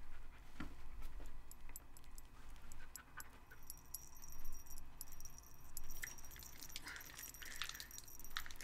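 A dog panting softly while the metal tags on its collar jingle as it moves about. The jingling grows busier from a few seconds in.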